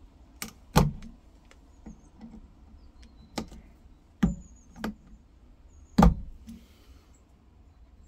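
Spring-loaded automatic center punch snapping into the old wooden wedge and handle stub in a hammer head's eye, breaking it up to clear the eye. Six sharp, irregular clicks, the loudest about a second in and about six seconds in.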